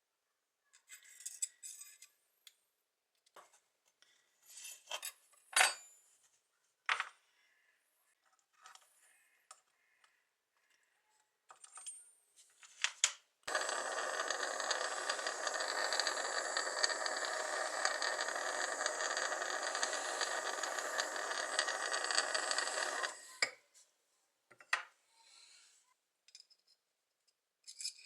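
Light metallic clicks and clinks of a knife and tools being handled. About halfway through, a power tool starts abrading metal with a steady, even noise, runs for about ten seconds, then stops, followed by a few more small clicks.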